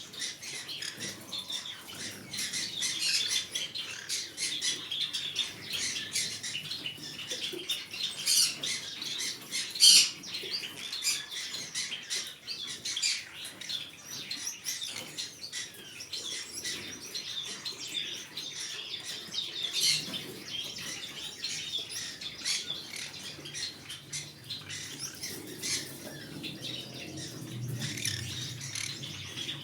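Green-cheeked conure making a stream of short, high chirps, mixed with many small clicks and scratches. There is one louder sharp call about ten seconds in.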